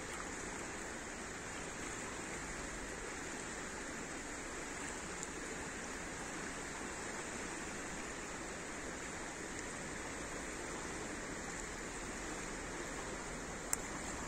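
Steady rush of a fast-flowing river current, with one sharp click near the end.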